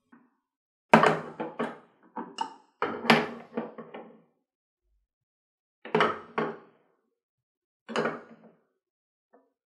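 Glass dropper bottles of skincare serum being set down on a white shelf: short knocks and clinks in several small clusters, with silent gaps between.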